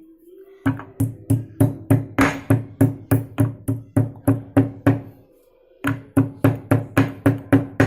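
Pestle pounding dry spices and bark in a mortar: steady, sharp strikes about three or four a second, each ringing briefly. About five seconds in the pounding pauses briefly, then starts again.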